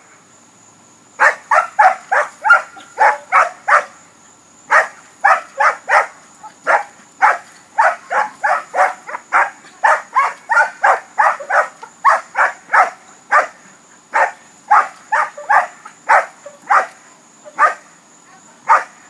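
A dog barking loudly and rapidly, about three sharp barks a second, in runs broken by brief pauses.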